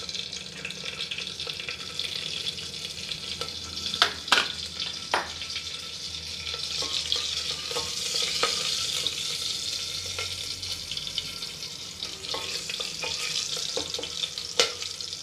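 Whole spices and chillies sizzling in hot oil and ghee in an aluminium pressure cooker, stirred with a wooden spatula. The spatula knocks against the pot a few times, sharply around four to five seconds in and again near the end.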